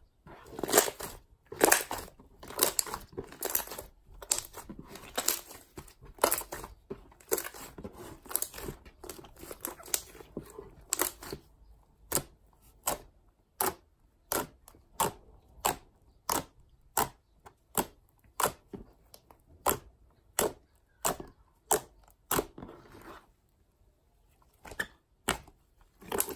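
Pink butter-style clay slime, made with play clay, being squeezed, pressed and poked with fingers, giving sharp crackling pops and clicks. The pops come thick and crackly at first, then singly about twice a second, with a short pause near the end.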